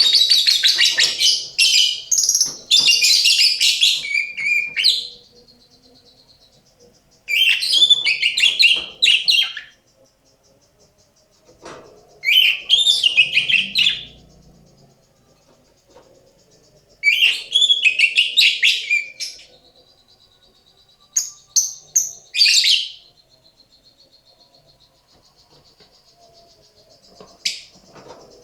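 Female lovebird calling in bursts of rapid, high chatter, each lasting a few seconds, about five times with pauses between. The call is unusual for a lovebird and not the typical ngekek trill. A faint steady high tone runs under the pauses.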